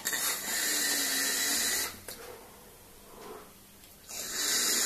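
A long airy hiss of about two seconds as air is drawn through the Wismec Reux RTA vape tank's wide-open airflow, then, after a short quiet pause, another rush of air of about a second and a half.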